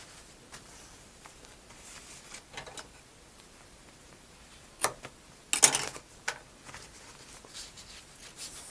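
Quiet handling of the poncho and a strip of tape, with a few short sharp crackles and clicks, the loudest cluster a little past halfway.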